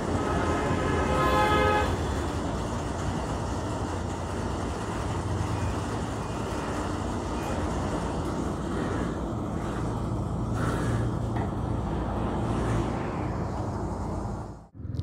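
A vehicle horn sounds for about two seconds at the start over steady road-traffic noise with a low hum.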